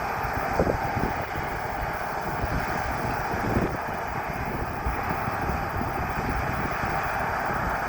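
John Deere combine harvester running steadily while cutting wheat, a constant mechanical hum, with wind buffeting the microphone.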